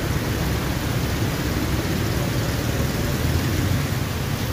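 Heavy monsoon rain falling steadily, with motor traffic on the wet road underneath as a low, continuous rumble.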